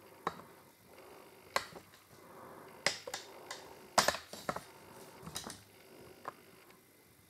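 Irregular sharp clicks and light knocks, about a dozen of them, with the loudest pair about four seconds in.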